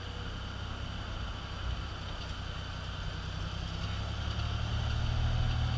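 Lifted Toyota Tacoma pickup's engine running low and steady at crawling speed. It gets louder about four and a half seconds in as the truck takes more throttle.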